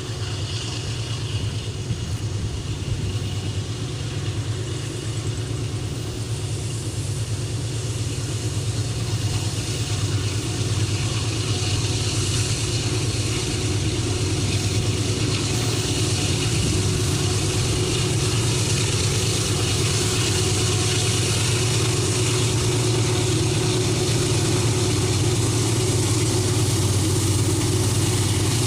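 Diesel locomotive engines of a heavy iron-ore train running with a steady low hum, growing gradually louder as the train draws closer.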